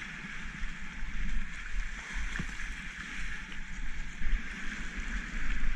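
Steady rushing hiss of river rapids heard from a kayak on the water, with a low rumble of wind on the microphone underneath.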